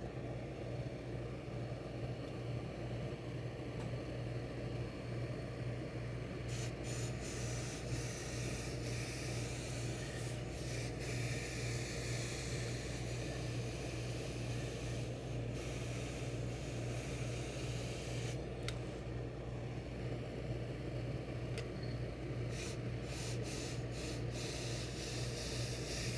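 A hose-fed steam iron pressing a suit sleeve: the iron rubbing over the cloth and steam hissing in spurts, with a few short clicks, over a steady low electrical hum from the pressing equipment.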